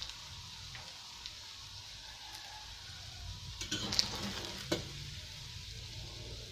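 Slices of chicken ham sizzling steadily in oil in a stainless steel frying pan. About halfway through, a metal slotted spatula scrapes and clicks against the pan as the slices are turned, with two sharper clacks.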